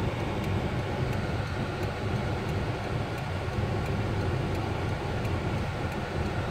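Steady engine and road noise heard inside the cabin of a Jeep Wrangler JK driving in snow.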